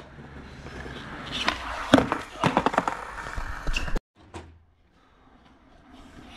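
Skateboard wheels rolling on a concrete slab, then a sharp pop about two seconds in followed by several quick board clacks as a flat-ground trick is tried. The sound cuts off suddenly about four seconds in, and rolling starts again near the end.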